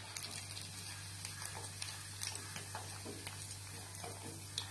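Paneer 65 pieces deep-frying in hot oil in a steel kadai: a steady sizzle with scattered small pops. A slotted steel spoon clicks lightly against the pan a few times as the fried-through pieces are lifted out.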